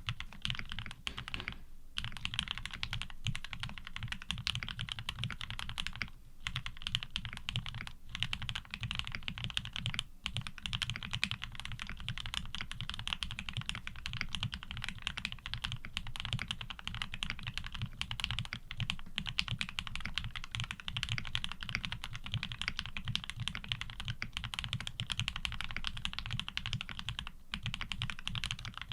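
Continuous fast typing on a custom 7V mechanical keyboard with lubed Gateron Ink Black linear switches and GMK keycaps: a dense stream of keystrokes, with a deep bottom-out thock under a crisp click, pausing briefly a few times.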